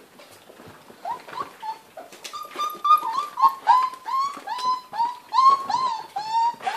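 Four-week-old Great Dane puppies whining and whimpering while they jostle at their mother's teats to nurse: a rapid run of short high cries, each dropping in pitch, starting about a second in and quickening to about three a second.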